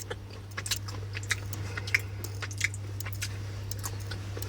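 A person chewing a spicy, meat-like packaged snack close to the microphone: irregular small crunches and mouth clicks. A steady low hum runs underneath.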